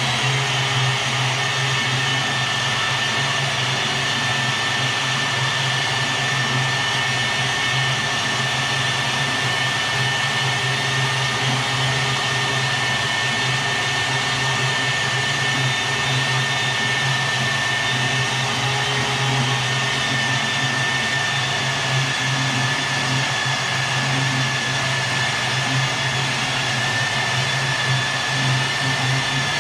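A motor-driven machine running steadily without a break, with a low hum and a thin high whine that sags slightly near the end.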